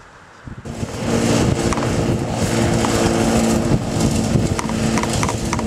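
Ride-on lawn mower engines running steadily while mowing dry grass, with a steady hum over a broad rushing noise, coming in abruptly just under a second in.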